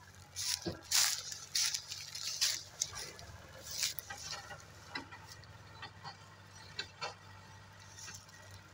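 New Holland tractor engines running steadily under load, pulling a heavily loaded sugarcane trolley, with irregular loud crackling and crunching of dry cane trash over them, heaviest in the first few seconds.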